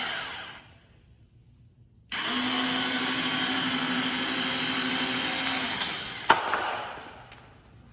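Electric linear actuator of a boat's surf-wake trim tab running as it drives the tab out to its deployed position: a brief run at the start, then a steady motor whine for about three and a half seconds before it winds down. A single sharp click follows a little after six seconds.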